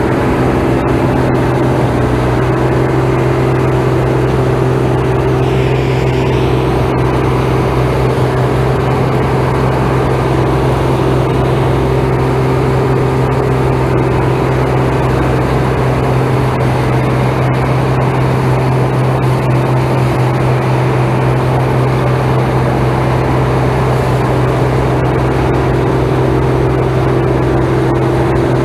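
Combine harvester running steadily while harvesting barley: a constant engine drone with an unchanging hum.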